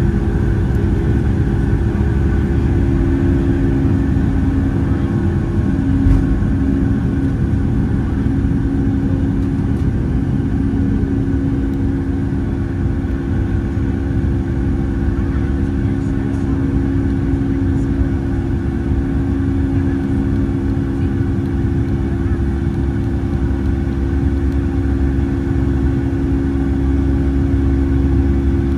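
Steady drone of a Boeing 757-200 airliner's engines and airflow, heard inside the passenger cabin, with a few constant hum tones over a deep rumble.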